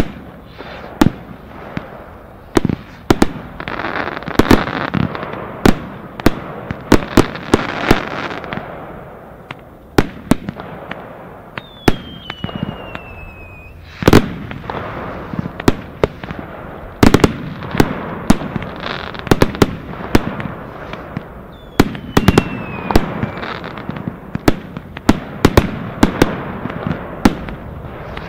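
Consumer fireworks going off: a dense run of sharp bangs and crackles over a steady rushing hiss, with a short whistle falling in pitch twice, about 12 and 22 seconds in.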